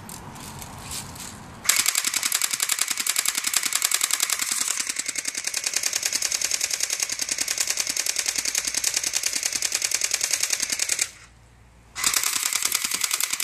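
Airsoft mini Uzi firing on full auto: a rapid, even rattle of shots that runs for about nine seconds, stops for about a second, then starts again in a second burst near the end.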